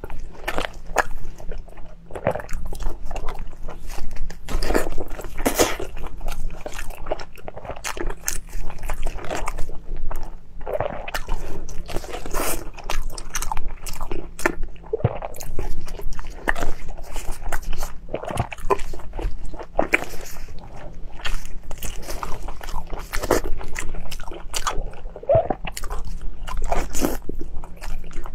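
Close-miked biting and chewing of cooked meat: a run of irregular wet smacks and crunchy clicks from the mouth.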